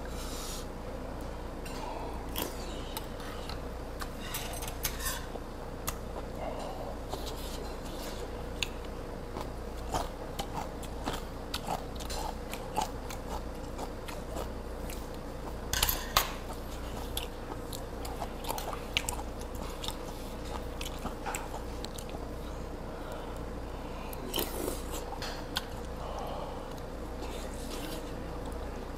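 A man chewing and biting mouthfuls of sundae-gukbap soup and boiled pork stomach, with scattered sharp clicks, the loudest a pair about halfway through. A steady low hum runs underneath.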